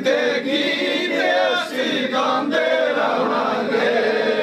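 A crowd of men chanting devotional verses together, many voices singing at once.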